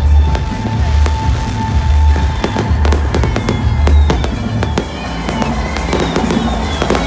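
Fireworks going off: many sharp bangs and crackles in quick succession. Music with a deep bass beat about once a second plays under them.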